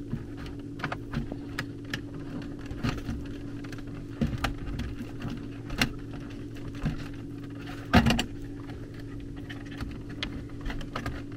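Small clicks and rattles of thin thermostat wires being worked into a zone control board's terminals, over a steady low hum, with one louder knock about eight seconds in.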